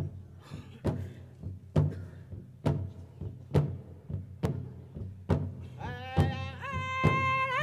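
Powwow drum music: a big drum struck in a steady, even beat a little more than once a second. A high-pitched voice comes in singing about six seconds in.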